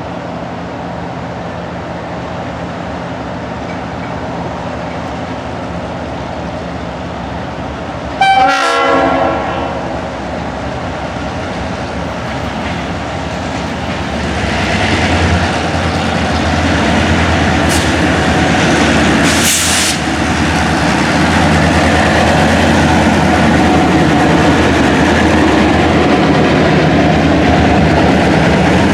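Diesel passenger-train locomotive running, with a short horn blast about eight seconds in. The engine and rail noise then grow louder about halfway through and stay loud, with a couple of sharp clanks.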